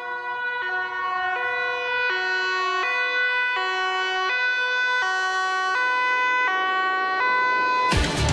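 Ambulance's two-tone siren (German Martinshorn), switching between a high and a low note roughly every three quarters of a second and growing louder as the ambulance approaches. It cuts off about eight seconds in.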